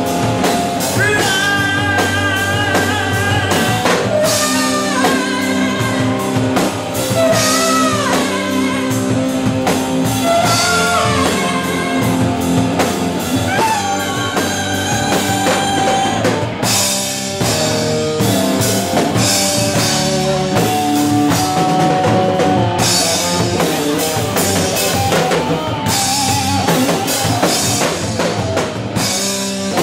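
Rock-style background music with drum kit and guitar, a wavering lead melody over a steady beat.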